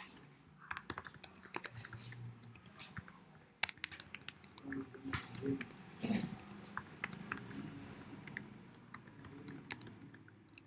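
Computer keyboard typing: quick, irregular runs of keystrokes as commands are entered.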